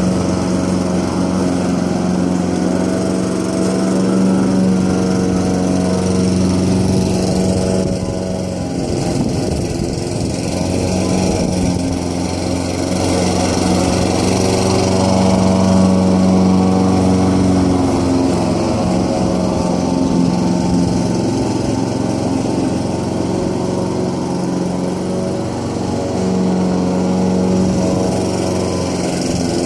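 Petrol lawn mower engine running steadily while cutting grass, its note wavering a little now and then.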